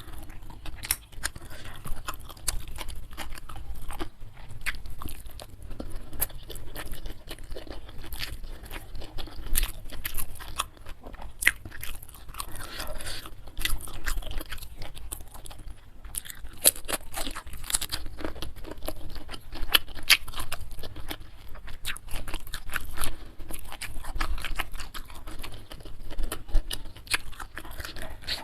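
A person chewing food close to the microphone, with many irregular crisp crunches and wet mouth clicks.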